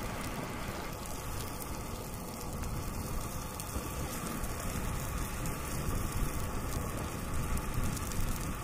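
Croutons and a salmon fillet sizzling steadily in oil and butter in a frying pan on a gas camp stove, with wind rumbling on the microphone.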